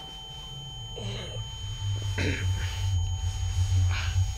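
Steady high ringing tones over a low droning hum that swells in about a second in, with a few faint muffled sounds: a dazed, ears-ringing film sound effect.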